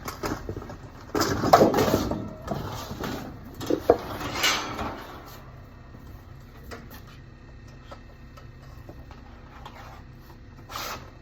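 Handling noises: a run of knocks, clatter and rustling over the first five seconds, then only small ticks until more rustling and clatter near the end.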